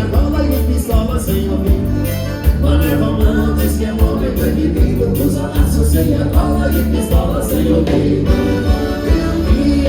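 Live gaúcho dance-band music, accordion-led, with bass and drums keeping a steady beat.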